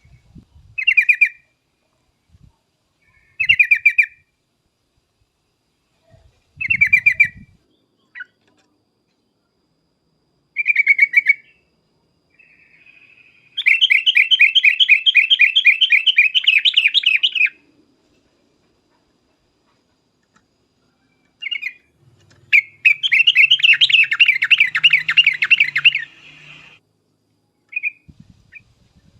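Yellow-vented bulbul (trucuk) singing: four short chattering calls a few seconds apart, then two long runs of rapid chattering notes, each about four seconds, separated by a pause.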